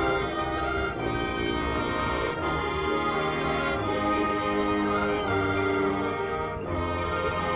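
High school marching band playing held brass chords that change about every second, with a few percussion hits.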